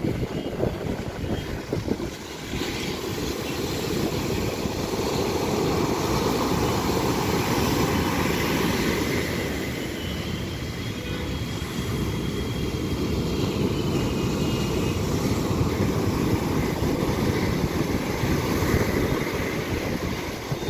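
Storm-driven sea surf breaking and washing up a sandy beach: a steady, dense rush of noise that slowly swells and eases as the waves come in, with wind buffeting the microphone.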